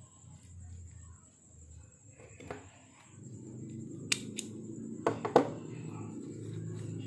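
Banana leaf crinkling as it is folded around fish paste, then sharp clicks of a small stapler fastening the leaf wrapper, two about four seconds in and two or three more a second later.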